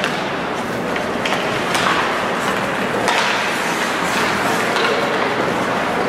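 Ice hockey game sounds in an indoor rink: an even wash of skates on the ice and crowd noise, cut by several sharp clacks of sticks on the puck.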